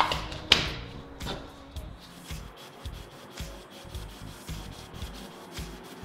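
A cotton towel scrubbed back and forth underfoot on a concrete floor, in an even run of scuffing strokes about two to three a second. Two sharp knocks come in the first second.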